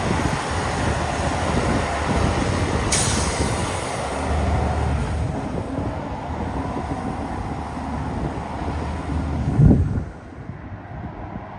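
Heavy truck's diesel engine running under load, mixed with road and wind noise. A short hiss sounds about three seconds in. The noise swells to its loudest near the end, then drops off sharply.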